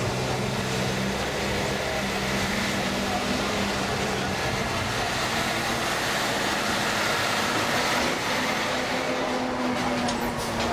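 Moving taxi heard from inside: a steady rush of road and wind noise over a low engine drone that is strongest in the first few seconds and comes back near the end.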